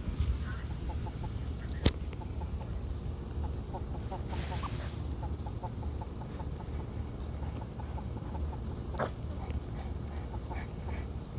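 Domestic fowl giving a long run of soft, short, quickly repeated calls. A single sharp click about two seconds in.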